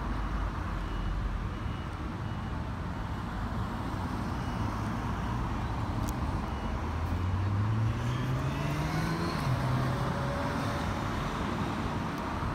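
Road traffic with a passing car accelerating: its engine note rises in pitch for a few seconds about halfway through, over steady road noise. Faint, evenly spaced high beeps sound in the first half.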